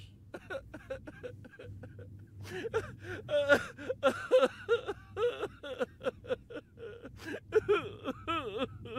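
A person's wordless vocal sounds: a long run of short breathy bursts with bending pitch, louder from about two and a half seconds in and wavering near the end.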